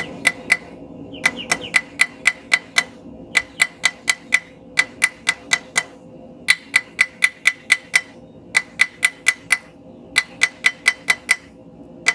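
Blacksmith's hammer striking hot steel bar on an anvil, forging in the corners of a taper to round the point. The blows come in quick runs of about five, roughly three a second, with short pauses between runs, and each blow rings.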